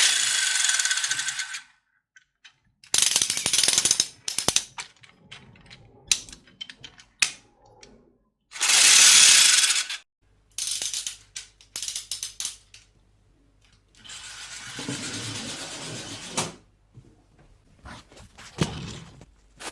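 Ratchet and gears of a 3D-printed PLA wind-up toy car clicking in several bursts of one to two seconds, with scattered single clicks between them.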